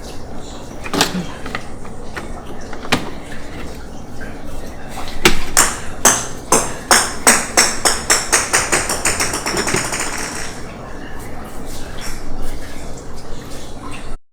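A small hard object clattering to rest on a hard surface, with a few separate knocks first. Its ringing taps come faster and faster and die away, like something wobbling or bouncing to a stop.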